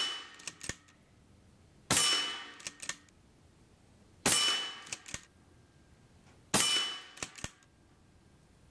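Three shots from a .25-calibre Daystate Delta Wolf PCP air rifle, about two and a half seconds apart. Each is a sharp crack that rings off and is followed about half a second later by a couple of faint clicks.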